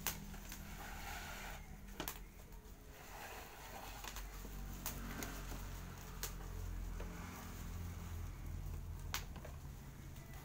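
Cardboard packaging of an aquarium filter being handled: the box slid and opened with a rustle at first, then a few separate light knocks and taps, over a low steady hum.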